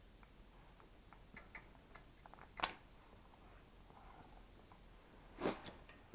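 Quiet workshop handling sounds: scattered faint clicks and ticks, with two louder short knocks, about two and a half and five and a half seconds in.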